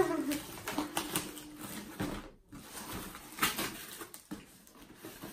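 Cardboard shipping box being pulled open by hand: irregular rustling, scraping and tearing of the flaps as a gift box inside is slid out.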